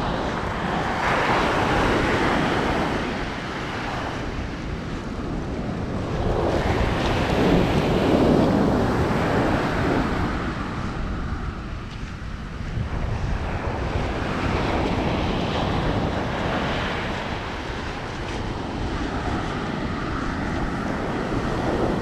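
Ocean surf washing up the beach in a steady rush that surges louder twice as waves break and run in, with wind rumbling on the microphone.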